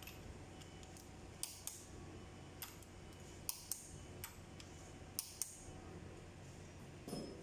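Sharp metal clicks of a wrench working on the valve rocker arms and adjusting screws of a Perkins 2806C diesel engine during tappet clearance adjustment. The clicks come mostly in pairs a fraction of a second apart, several times, and a duller knock follows near the end.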